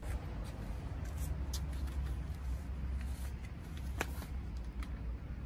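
A few light clicks and knocks of a metal planter-stand frame being handled and fitted together, the sharpest about four seconds in, over a steady low rumble on the microphone.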